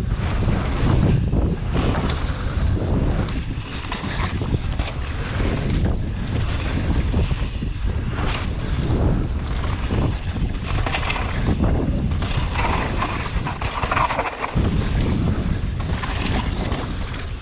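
Wind rushing over the microphone as a Pivot Phoenix downhill mountain bike descends a loose, rocky trail, its tyres rolling over stones, with many short knocks and rattles.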